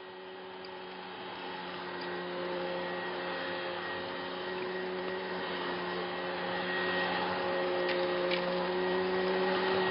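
Upright vacuum cleaner running on carpet: a steady motor hum with a rushing air sound, growing gradually louder.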